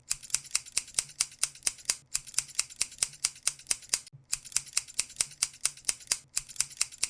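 Rapid, even clicking, about six sharp clicks a second, over a faint low hum. It breaks off briefly about every two seconds and resumes unchanged.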